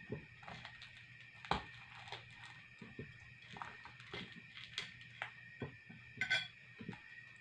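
A spoon scraping and clicking against the hard, armored skin of a grilled janitor fish (suckermouth armored catfish) and its plate as the tough skin is pried open: scattered light clicks and scrapes.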